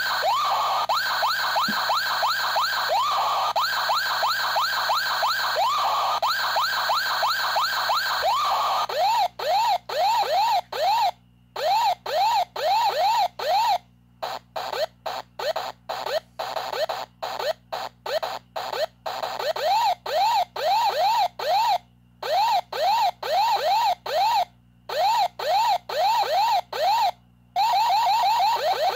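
Circuit-bent toy fire truck's electronic siren sampled into a PO-33 K.O! pocket operator and sequenced. A fast warbling siren with rapid rising-and-falling sweeps plays continuously for about nine seconds. It then turns into a chopped, stuttering rhythmic pattern of short siren bursts, about three sweeps a second, separated by brief silent gaps.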